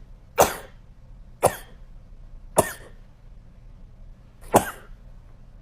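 A woman's fit of short, sharp sneezes, four in all: three about a second apart, then one more after a two-second pause. The rapid repeated sneezing of a sneezing disorder.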